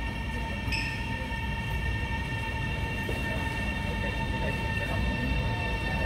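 Train running: a steady low rumble with a steady whine of several high tones above it.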